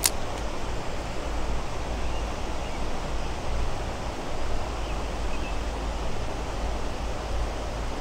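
Steady rushing of creek water flowing over riffles and rocks, with a low rumble underneath and a single click at the very start.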